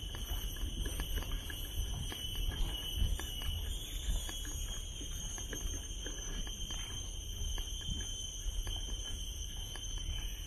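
Insects droning steadily at a high pitch, with several shrill tones that do not break, over the tick of footsteps and low wind rumble on the microphone.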